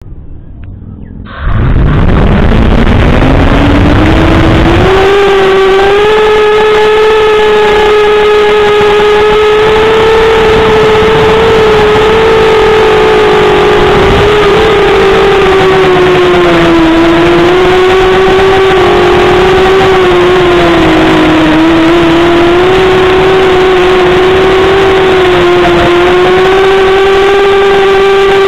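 Hex 300 hexacopter's electric motors and propellers spinning up about a second and a half in, the whine rising in pitch over a few seconds, then holding as a loud steady whine in flight that dips and wavers slightly with throttle.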